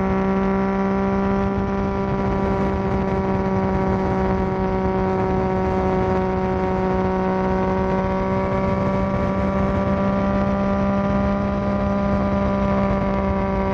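2022 Yamaha Tracer 9 GT's inline-three engine, breathing through an unbaffled Akrapovic full exhaust, running on the move at a steady engine speed, its pitch held even throughout.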